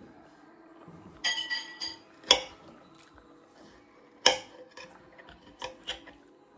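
Cutlery clinking and scraping against a plate while eating, with a few quick ringing taps and two sharper clinks about two and four seconds in.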